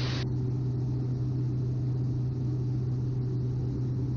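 Steady drone of a Cessna 208 Grand Caravan EX's Pratt & Whitney PT6A-140 turboprop and propeller in the climb, with a strong low hum, heard in the cockpit. A brief hiss at the very start.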